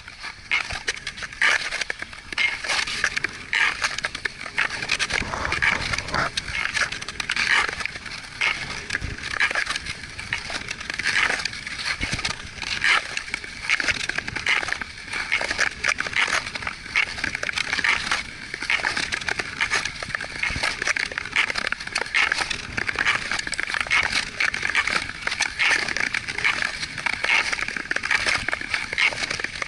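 Long-distance ice skate blades scraping and gliding over rough ploughed lake ice, in a steady rhythm of skating strokes.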